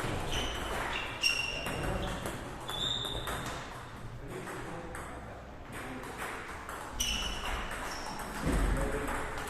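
Table tennis play: the plastic ball clicks off bats and table, each hit leaving a short high ping, in an irregular stream of strokes and bounces. A low thump comes near the end.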